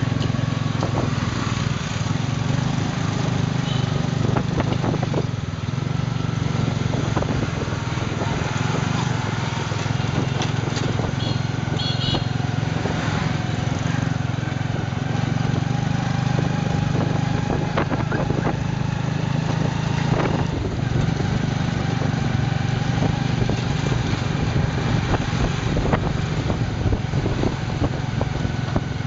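Small motorcycle engine running steadily as it tows an open tuk-tuk trailer (remork) through street traffic, heard from the passenger seat behind it.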